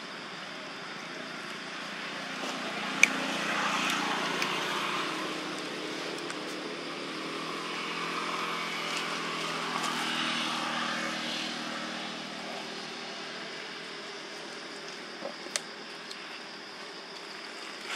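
A distant engine hum that swells about three seconds in and fades away after about eleven seconds, with one sharp click near the start.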